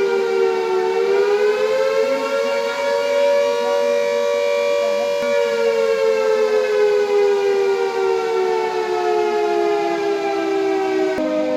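Civil-defence warning siren wailing, the alert that starts a mock air-raid drill. Its single pitched wail rises slowly, holds, then sinks slowly, and near the end drops suddenly to a lower note.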